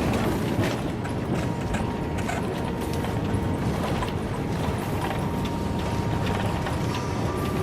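Cabin noise aboard an Airbus A350-900 during the arrival: a steady dense rumble with frequent small rattling clicks and a faint steady tone.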